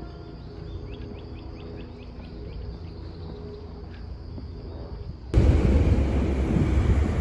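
Quiet outdoor ambience with a quick run of about ten short, high chirps about a second in. From about five seconds in, wind buffets the microphone with a loud, gusty rumble.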